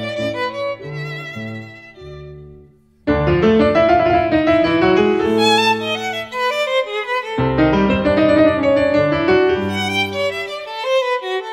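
Background music: a slow melody of held, wavering notes over low sustained notes. It breaks off into a brief hush about two seconds in and resumes a second later.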